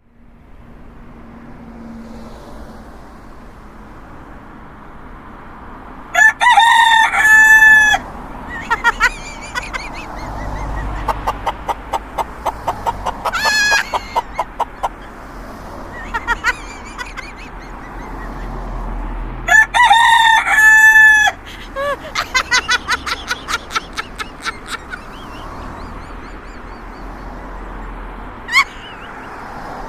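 Rooster crowing loudly twice, each crow about two seconds long, with runs of quick repeated clucks and a few short calls in between.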